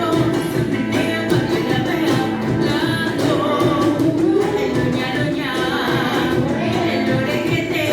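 Music with singing, including a woman's voice, over instrumental accompaniment.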